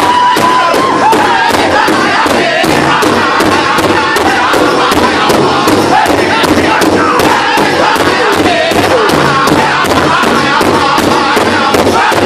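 A powwow drum group singing loudly in unison while beating a large hide powwow drum together with drumsticks, a steady beat of about three and a half strokes a second. In the first second one high voice holds a note that slides down.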